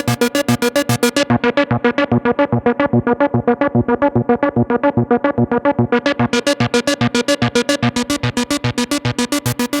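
Korg ARP 2600 FS analogue synthesizer playing a fast, even run of short repeating notes. The tone dulls about a second in as the filter closes, then turns bright again about six seconds in as it opens.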